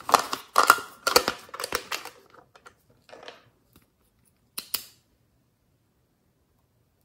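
Hard plastic clicks and clattering as a toy makeup case is opened and handled, for about two seconds. Near five seconds, two quick clicks from a lip gloss tube.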